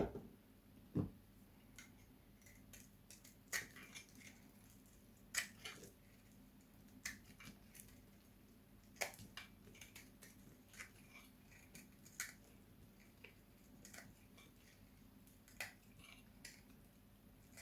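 Dry bar soap being cut: crisp, quiet cutting clicks about every one and a half to two seconds, with faint crackles between. Two duller knocks sound in the first second.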